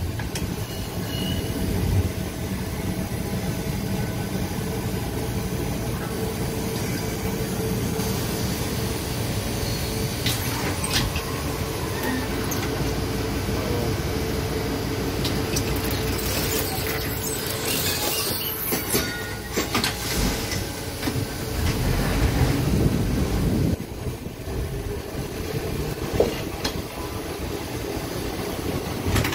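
Replica heritage electric streetcar running on street track, heard from inside the car: a steady low rumble of wheels on rail under a constant hum. There are a few sharp clicks, and a short stretch of high-pitched noise comes a little past halfway.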